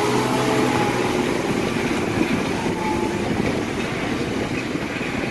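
Loaded Tata 1613 tipper truck's diesel engine running as the truck drives away over a rutted mud road, a steady rumble that slowly fades.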